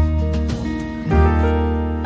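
Background music: a soft, gentle instrumental track with sustained notes and a steady low bass.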